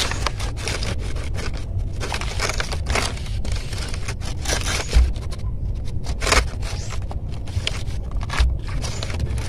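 Pomelo peel being torn off by hand: the thick rind and spongy white pith scrape and crackle in many short, irregular tears, with a few louder rips about five, six and eight and a half seconds in.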